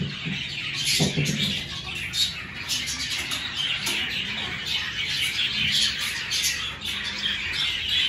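A flock of budgerigars and cockatiels chattering and chirping together in an aviary: a dense, continuous twittering with many overlapping short calls.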